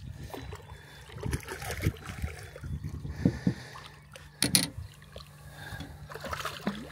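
Water splashing at the surface as a hooked channel catfish thrashes and is brought alongside a boat, with a few sharp knocks and a louder burst about halfway through, over a steady low hum.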